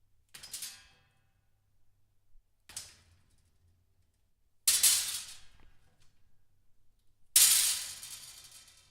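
A clothes horse being handled, its frame clattering and rattling in four separate bursts, the last two loudest, each jangling out over about a second.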